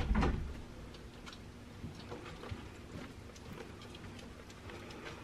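A low thump right at the start, then quiet, scattered footsteps and light clicks of people walking slowly on a carpeted hallway floor.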